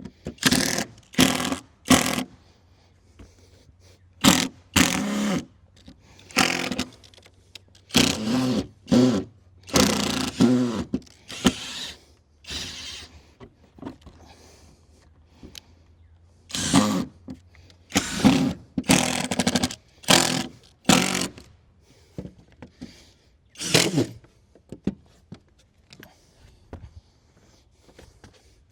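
Power drill running in repeated short bursts, each lasting up to about a second with gaps between, as screws are driven to fasten deck boards down.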